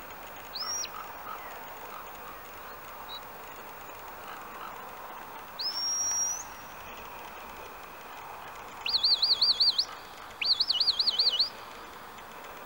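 Shepherd's whistle commands to a working sheepdog. A short rising whistle comes near the start and a longer one rises and holds around the middle. Two loud warbling, trilled whistles follow near the end, the second a little longer.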